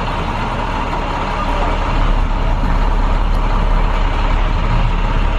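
2013 IC CE300 school bus's twin-turbo MaxxForce DT diesel running as the bus drives, with a steady low rumble and road noise. It gets louder about two seconds in.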